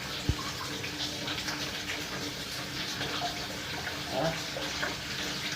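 Water running steadily as a washing machine tub is drained.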